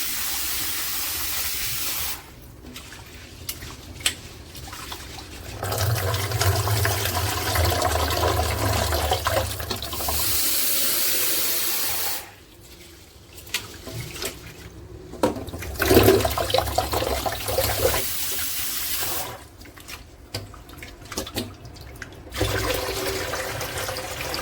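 Kitchen sink tap running on and off in several spells of a few seconds each, water splashing into the sink, with small knocks between spells.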